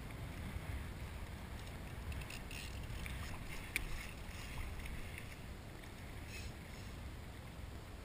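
Wind buffeting the camera microphone as a steady low rumble, with water lapping. A scatter of faint clicks and ticks comes from about two seconds in, with one sharper click near the middle.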